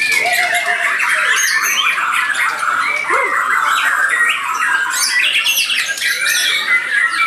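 Murai batu Borneo (Bornean white-rumped shama) songbirds singing in a contest: a dense, unbroken stream of rapid whistles and chattering phrases from several birds at once.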